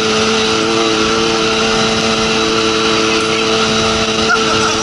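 Yamaha YXZ1000R side-by-side's three-cylinder engine running at a steady cruise under way, with wind and road noise in the open cab.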